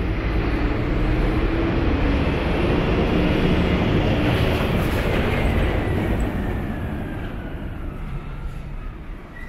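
Garbage truck's engine running loud as it passes close by, then fading as it moves off after about six seconds, with a whine that falls in pitch as it goes.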